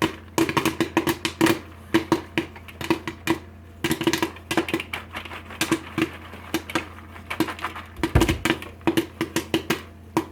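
Popcorn kernels popping in quick succession inside a popcorn popper, many sharp pops a second at the height of the batch, with one heavier thump about eight seconds in.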